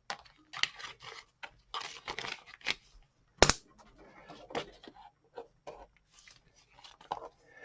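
Handling noise: rustling, scraping and scattered clicks, with one sharp click about three and a half seconds in.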